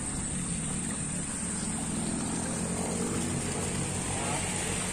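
Small engine running steadily, an even low drone, with water splashing from the well's discharge pipe.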